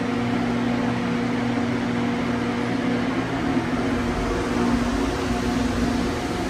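Passenger lift in motion: a steady machine hum with a low drone and a faint ventilation-fan whir inside the car.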